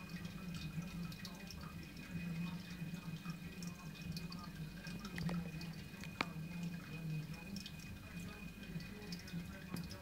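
Aquarium filter running: a steady low hum with water trickling and dripping, a scatter of small ticks throughout, and two sharper clicks about five and six seconds in.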